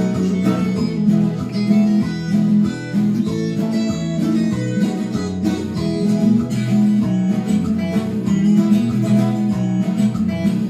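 Viola caipira, the ten-string Brazilian folk guitar, playing an instrumental interlude between sung verses, plucked notes over strummed chords.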